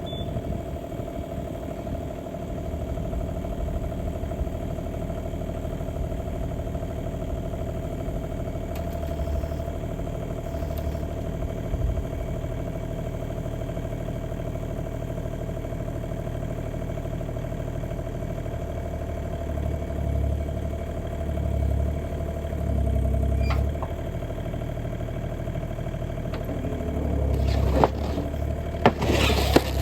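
Bobcat E35 mini excavator's diesel engine idling as it warms up from a cold start, with a steady whine over the engine and a few brief swells in engine load. Near the end, loud crackling and scraping starts over the engine.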